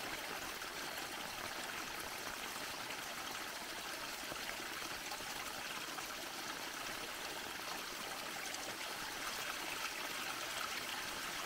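Muddy storm runoff from a road culvert pouring steadily through the notch of a small stone dam and splashing into the rocky channel below.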